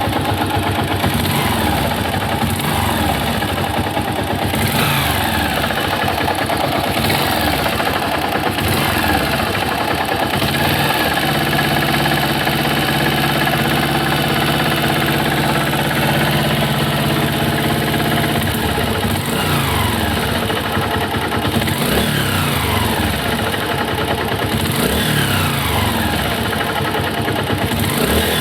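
Honda 125 pushrod single-cylinder motorcycle engine running. It idles and is revved several times, the pitch falling after each rev. It carries a noise that the owner suspects is connecting-rod knock.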